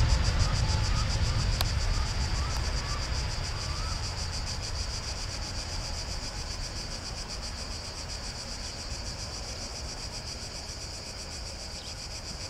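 Insects chirring steadily in a high, rapidly pulsing tone, while the low rumble of a jet airliner's engines fades away over the first half.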